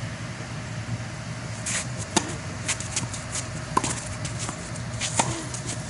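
Tennis rally on a green clay court: sharp pops of racket strikes and ball bounces about every second and a half, with shoe scuffs on the clay, over a steady low background hum.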